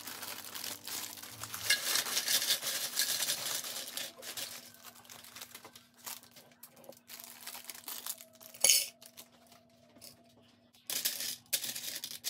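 Many small Lego plastic pieces poured into a clear plastic tray: a dense clatter for the first few seconds, then scattered clicks as pieces are handled, with one sharper click about three-quarters through and a flurry of clicks near the end as pieces are picked from the tray.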